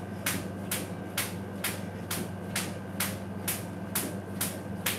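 Jump rope slapping the tile floor once per turn in a steady rhythm, about two slaps a second, over a low steady hum.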